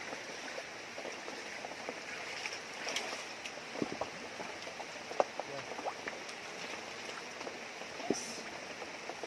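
Shallow river running over rocks, a steady rush of water, with a few light knocks and splashes, the sharpest about five seconds in.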